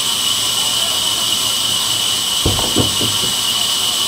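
Sawmill band saw running steadily, a loud continuous hiss with a high whine. About two and a half seconds in, two or three dull thumps.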